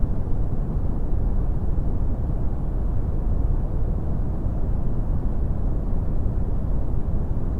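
Brown noise: a steady, unchanging deep rushing hiss, heaviest in the bass, with almost nothing high-pitched.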